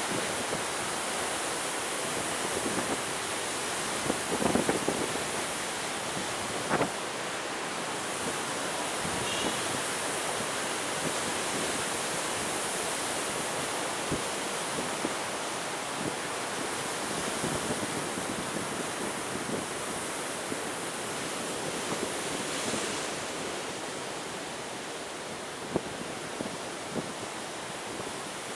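Strong coastal wind and sea surf making a steady rushing hiss, with wind buffeting the microphone. A few short sharp knocks stand out about four to seven seconds in and again near the end.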